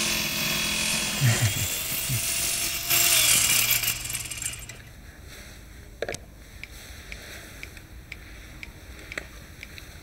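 Angle grinder cutting metal, a loud steady grinding hiss that stops about five seconds in. After that only a low background is left, with a few sharp clicks.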